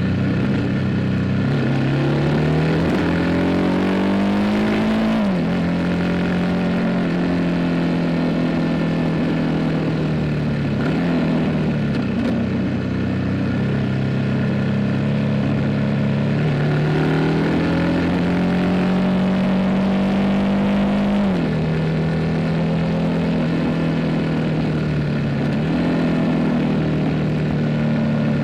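Harley-Davidson Pan America's Revolution Max 1250 V-twin running through a Screamin' Eagle Street Cannon exhaust while riding. The engine note climbs under throttle and drops sharply at upshifts about 5 seconds in and again near the end, then eases down as the bike rolls off.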